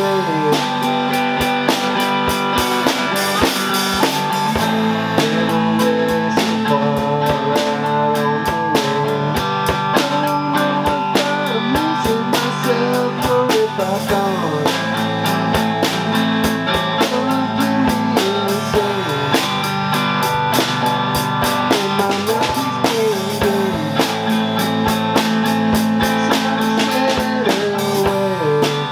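Electric guitar and a Mapex drum kit playing a blues number together. The guitar plays notes with string bends over a steady beat on the drums.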